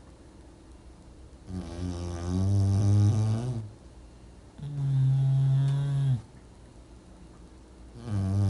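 English bulldog snoring: three long, deep snores in a slow rhythm, about one every three seconds. The snores alternate between a wavering, rattling pitch and a steady, even one.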